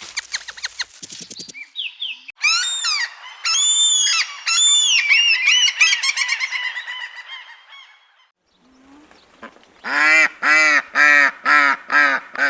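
Waterfowl honking: a quick rattle of clicks first, then a string of loud honks, and after a short pause six quick honks, about two a second.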